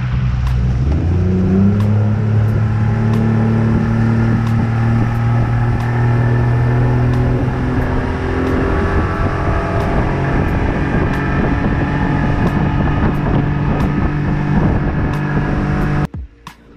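Boat's outboard motor revving up, rising in pitch over the first couple of seconds, then running steadily at speed with the rush of water and wind. It cuts off abruptly near the end.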